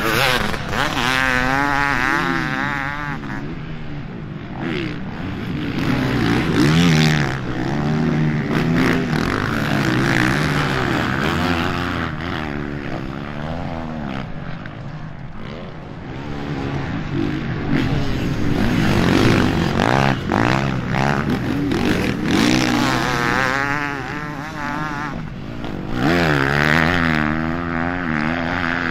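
Motocross motorcycle engines racing, revving up and down over and over as the bikes ride the track and pass by.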